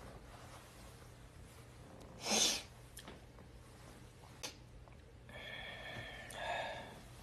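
A person's breath sounds: one sharp, noisy exhale about two seconds in, a small click, then a brief high-pitched hum or squeak near the end.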